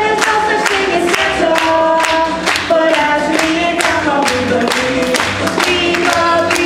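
A group of voices singing together in harmony, holding notes over a steady beat of about three sharp strokes a second.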